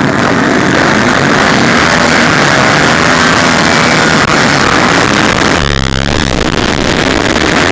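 A pack of motocross dirt bike engines revving hard together, as at a race start from the gate. The sound changes a little after five seconds in.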